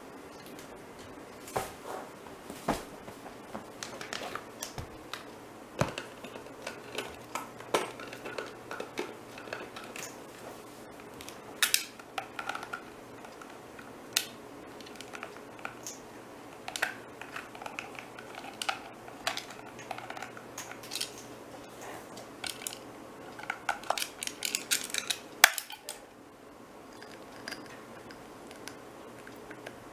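Umbrella cockatoo chewing and prying at hard plastic toy pieces with its beak: irregular sharp clicks, cracks and clatters of beak on plastic, coming thick and fast just before a loud snap about 25 seconds in, then fewer and softer.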